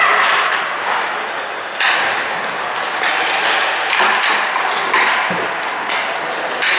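Ice hockey play in a rink: a handful of sharp knocks of sticks and puck over a steady noisy background.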